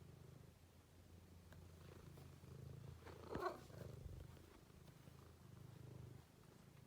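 Domestic cat purring: a faint, low, steady rumble that swells and eases with its breaths. One short meow cuts in about three and a half seconds in.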